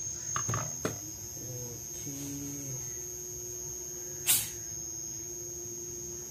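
Inverter air conditioner compressor running with a steady hum, now driven by a board with a newly replaced IPM. A steady whine settles in about halfway. There are a few light clicks near the start and one sharp click about four seconds in.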